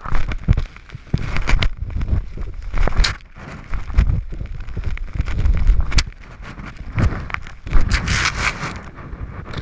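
Wind buffeting the microphone in irregular low rumbling gusts, with scattered knocks and a hissing scrape near the end.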